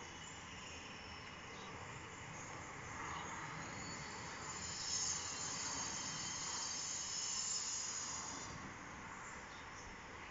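Distant circular saw running with a thin high whine that comes up about four and a half seconds in and fades out near nine seconds, over a steady background hiss.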